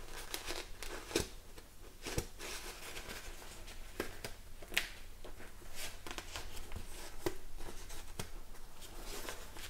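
Hands pressing a foam-and-fabric cheek pad into a motorcycle helmet: soft rubbing and rustling with scattered light clicks and knocks against the helmet.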